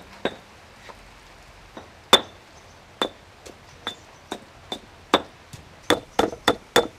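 Stone pestle pounding kroeung paste of lemongrass, kaffir lime leaves, turmeric and garlic in a stone mortar: sharp knocks with a short ring. The strokes are sparse at first, the loudest about two seconds in, then come steadily at two to three a second.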